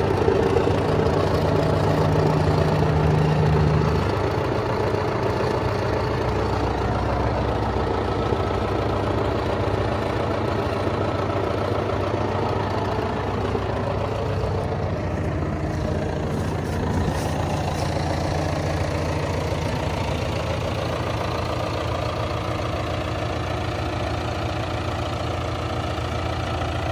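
John Deere 6125R tractor's diesel engine running steadily, a little quieter after about four seconds.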